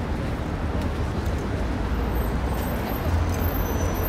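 Road traffic noise: a steady low rumble of passing motor vehicles.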